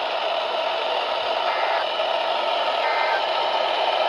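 Steady hiss of static from a NOAA Weather Radio receiver on a weak signal. Two short two-tone data bursts of the EAS (SAME) signal sound faintly through it, about 1.3 s apart, the pattern of the end-of-message code that closes a warning.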